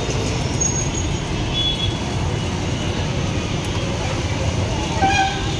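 Steady low rumble of street traffic, with a brief pitched sound about five seconds in.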